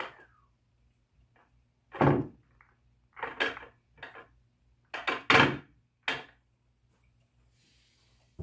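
Pool balls knocking and thudding on a pool table: a run of about six separate knocks over four seconds, the heaviest about two seconds in and again near five and a half seconds.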